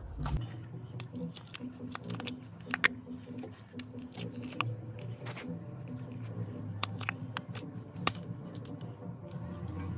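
A new rubber CV joint gaiter being worked onto a driveshaft by gloved hands: irregular squishing and rubbing, with many small sharp clicks.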